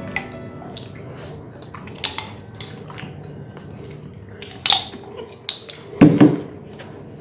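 Scattered clicks and clinks of spoons scraping out Nutella jars, with two louder knocks in the second half.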